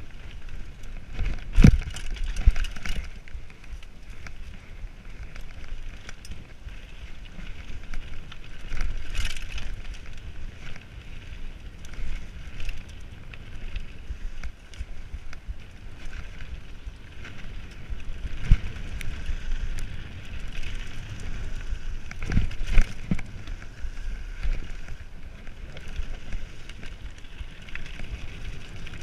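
Mountain bike running fast down a dirt forest trail: a steady rushing noise of tyres on dirt and air, broken by sharp knocks and clatters as the bike hits bumps. The loudest knocks come about two seconds in and again around 22 seconds.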